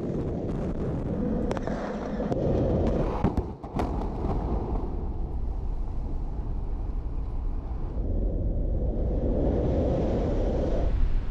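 Explosive blowdown of a 114-metre hyperbolic concrete cooling tower. A string of sharp cracks from the charges in its legs and shell sounds over the first few seconds, then a steady low rumble as the shell collapses in on itself.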